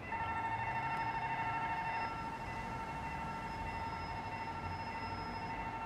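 Level-crossing warning signal sounding: a steady electronic alarm tone that sets in sharply at the start, with a second lower tone alongside it for the first couple of seconds.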